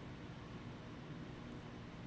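Faint steady hiss with a low hum underneath: room tone, with no distinct sound.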